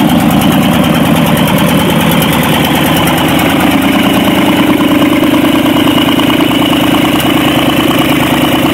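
Cadillac 500 cubic-inch (8.2-litre) V8 from a 1977 Fleetwood, swapped into a Massey Ferguson MF35 tractor, running steadily, heard close to the exposed engine.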